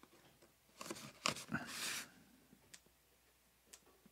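Packing tape being picked at and peeled off a cardboard box: a short run of scratches and rips a little under a second in, then a few faint ticks.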